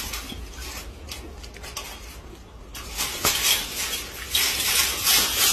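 Chain-link fence rattling and clinking as monkeys pull and press against it, growing louder about halfway through, with one sharp click.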